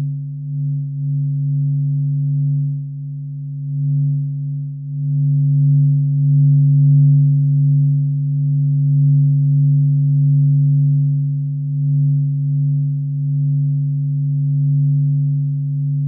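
Filtered sonification presented as the sound of the Sun: a low, steady humming drone of a few held tones, its loudness slowly swelling and easing.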